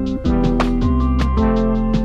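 Background music with a steady beat over held bass and chord notes.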